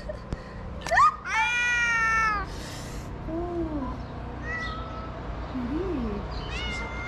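Domestic cat meowing: a short rising call about a second in, then one long loud meow, followed by fainter, lower gliding calls and another meow starting near the end.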